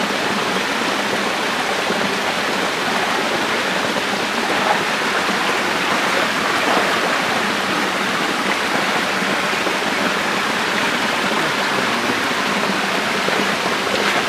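Water rushing and splashing steadily in a shallow catfish nursery tank as workers wade through it with a net; an even, continuous wash with no pauses.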